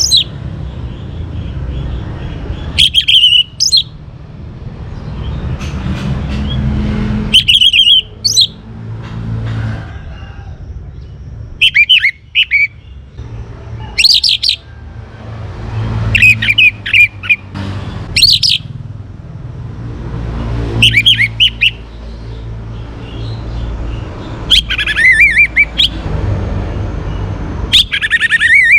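Young orange-headed thrush singing short, loud whistled phrases, about nine of them, spaced every two to four seconds, over a low steady rumble.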